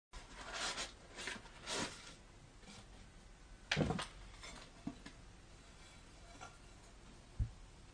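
Rustling of a cardboard box and a fabric mesh bag as a camping cookware set is lifted out and handled. There is a dull thump, the loudest sound, just before four seconds in, and two lighter knocks later.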